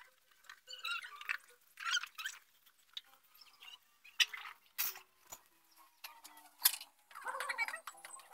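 Dishes washed by hand: short bursts of sponge scrubbing and squeaking on plates and cups, with a few sharp clinks of dishware.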